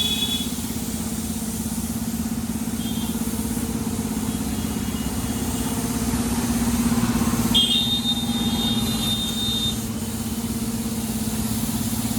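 An engine running steadily at a constant pitch with a fine rapid pulsing. A thin high tone sounds briefly about three seconds in and again for about two seconds near the eight-second mark.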